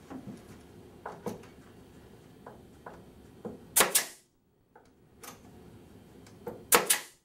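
Pneumatic nail gun firing into the parting stop across the top of a window frame: two sharp shots, about four seconds in and again near the end, with a few lighter knocks about a second in.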